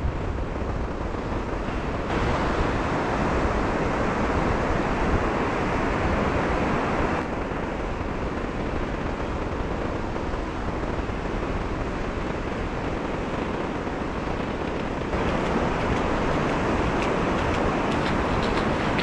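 Surf breaking steadily on a sandy beach, with wind buffeting the microphone. The level jumps abruptly a few times.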